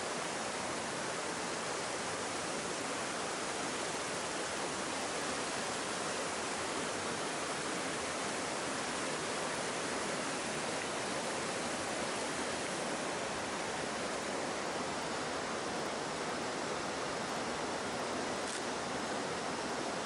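Steady rush of a mountain stream cascading over rocks in a narrow gorge, an even, unbroken water noise.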